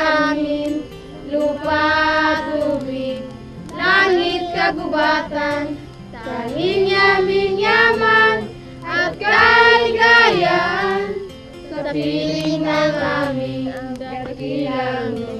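A group singing a song together, children's voices among them, in phrases of one to three seconds with short breaks between.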